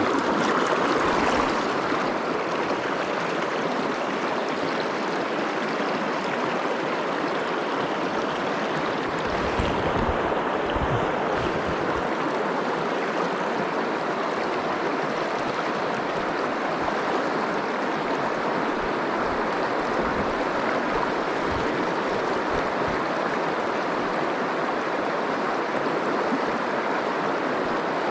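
River water rushing steadily. A few soft low thumps come in, the clearest about ten seconds in.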